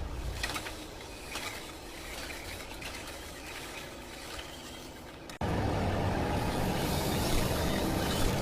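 Wall plastering machine running: a quieter stretch of scraping noise with scattered light knocks, then, after an abrupt cut about five seconds in, the louder steady hum of its motor.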